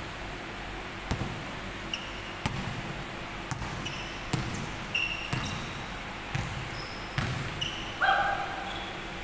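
Basketball bouncing on a hardwood court in irregular thuds, mixed with sneakers squeaking short and high on the floor, and a louder, longer squeal about eight seconds in.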